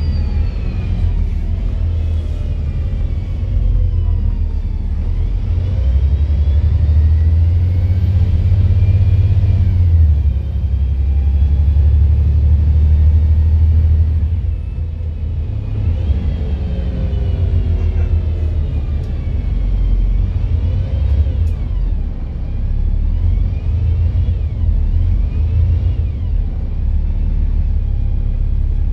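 Volvo B7 double-decker bus on the move, heard from inside: a deep engine rumble with a drivetrain whine that falls as the bus slows and rises as it pulls away, several times over. The rumble is heaviest and steadiest for several seconds in the middle, then drops suddenly about halfway through.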